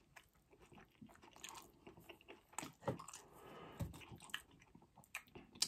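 Close-miked chewing and biting of McDonald's food: quiet, irregular crunches and wet mouth clicks.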